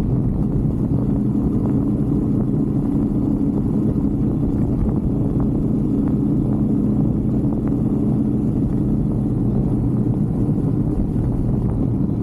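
Brixton 125cc single-cylinder motorbike engine running steadily while riding.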